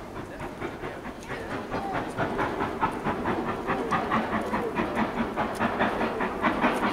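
LNER B12 steam locomotive's exhaust beating hard as it works a train uphill: a quick, even chuffing that grows louder about two seconds in.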